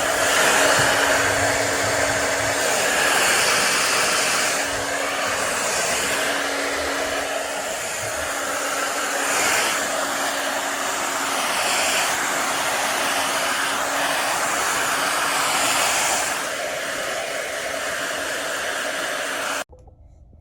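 Wavytalk QL-5917BDC 1875-watt ionic hair dryer running: a steady rushing blow of air over a low motor hum, switched off abruptly near the end.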